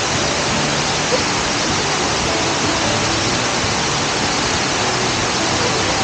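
Benang Kelambu waterfall: many streams of water spilling down a mossy rock face and splashing onto the rocks below, a steady, even rushing.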